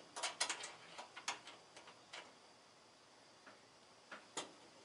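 Light clicks and ticks of plastic and metal parts as the rotisserie flange adapter is turned by hand in the rotisserie motor's housing: a quick run of clicks over the first two seconds, then one more click near the end.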